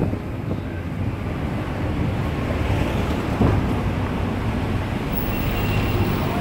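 Wind buffeting the microphone over the steady low rumble of a moving open-sided tuk-tuk's engine and tyres on the road.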